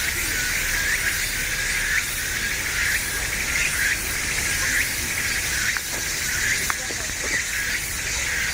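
A dense, steady chorus of chirping insects in the woods, with many overlapping calls.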